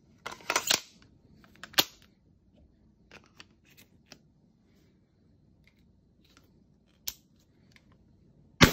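Metal-and-plastic clicking and clatter as a brass-coloured shell is slid into a pistol-grip airsoft grenade launcher and locked in, with a sharp click a second or so later and another near the end. At the very end the launcher fires once with a loud, sharp shot.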